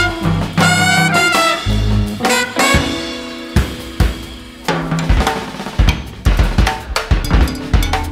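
Live jazz: trumpet and saxophone play short, punchy phrases together, then fall away. From about halfway through, busy drum-kit playing takes over, with bass drum, snare and rimshot strokes.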